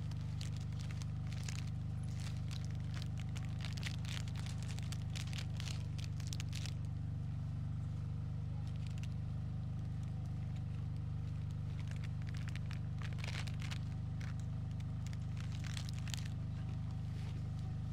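Tractor diesel engine idling steadily. Crinkling and rustling of a wrapper being handled sounds over it, off and on.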